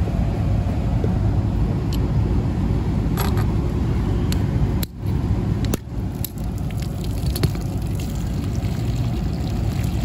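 Backed-up water pouring and splashing out of a cut PVC condensate drain line onto the roof membrane as the clogged line empties, with a few sharp clicks around the middle, over a steady low rumble.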